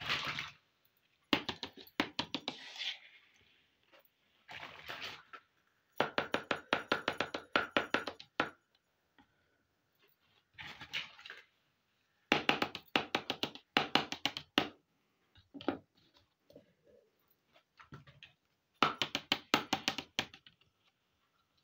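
Small plastic toy kitchen pieces being handled and set down: several bursts of rapid clicking and clattering, a few seconds apart, with quiet gaps between.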